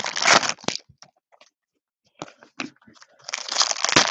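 Foil trading-card pack wrapper crinkling and being torn open by hand, in two spells of crackling: one at the start, then again from about three seconds in, with a quiet gap between.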